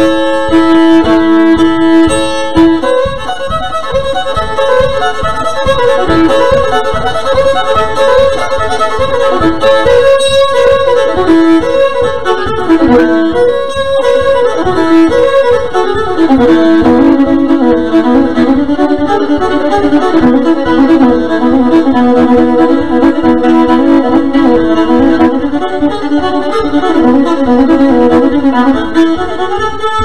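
Solo fiddle tune, bowed fast with a held drone note under the moving melody and no pauses.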